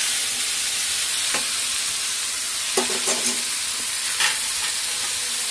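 Cauliflower and potato pieces sizzling in oil in a metal wok, with a steady frying hiss, while a spatula stirs them. The spatula scrapes against the pan a few times.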